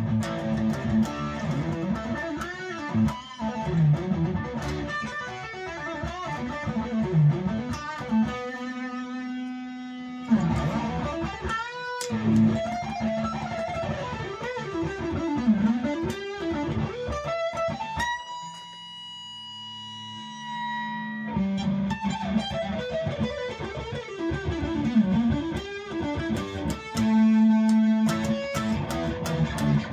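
Epiphone SG G-400 electric guitar played through an overdriven amp: shred-style lead lines with repeated string bends and releases. A quieter held note rings a little past halfway, and fast picked runs come near the end.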